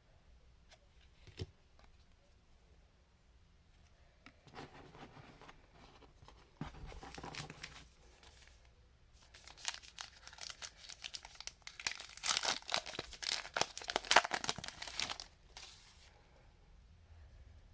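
Plastic wrapper of a trading-card pack being crinkled and torn open, the loudest tearing and crackling coming about halfway through and lasting several seconds.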